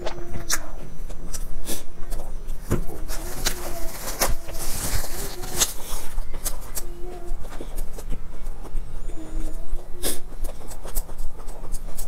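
Close-miked biting and chewing of a crusty baked bread roll: crisp crackling crunches and wet mouth noises, with short pitched squeaky mouth sounds every second or two between bites.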